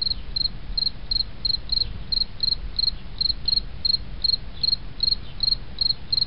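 Insect chirping, short high chirps repeating evenly about three times a second, over a steady low rumble.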